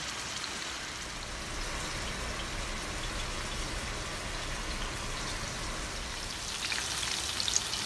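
Ribeye steaks searing in oil in a hot cast-iron skillet: a steady sizzle, with sharper crackling and spitting near the end.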